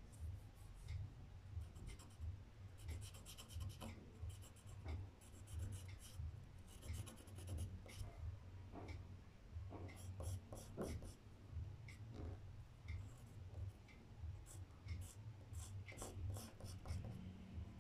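Pencil scratching on paper: a light-coloured pencil drawn over black paper in many short, irregular strokes, over a low rumbling hum.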